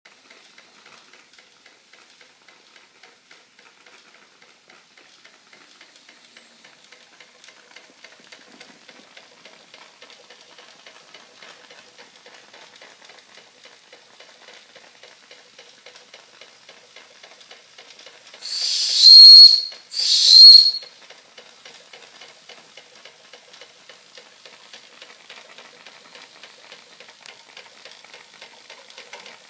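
Fleischmann 135/2 toy steam engine running with a faint, even chuffing. About two-thirds of the way through, its boiler's steam whistle gives two short blasts about a second apart, each a hissing, slightly rising shrill tone and far louder than the running engine.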